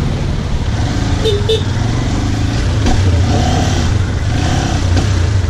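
Motorcycle engine running at low, steady revs while riding slowly.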